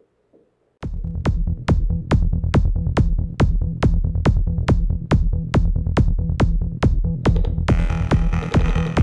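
Electronic dance music with a steady kick-drum beat, a little over two beats a second, cutting in abruptly about a second in. A denser sustained synth layer joins near the end.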